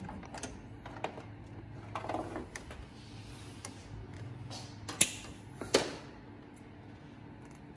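Scattered small clicks and snips of a hand wire stripper and bare speaker wire being worked by hand, with two sharper snaps about five and six seconds in, over a faint steady hum.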